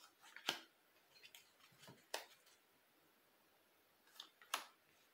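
Tarot cards being drawn from the deck and laid down: a few faint, short clicks and taps, three of them sharper than the rest.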